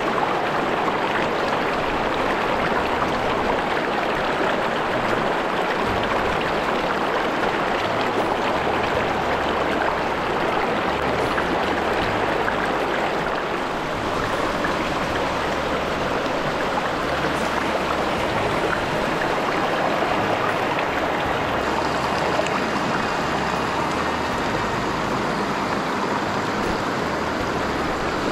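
Shallow river riffle rushing steadily over stones close to the microphone, a constant even water noise.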